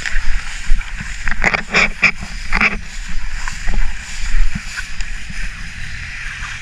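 Footsteps swishing through tall grass while walking, with wind rumbling on the microphone; a louder run of rustling strokes comes about a second and a half in and lasts just over a second.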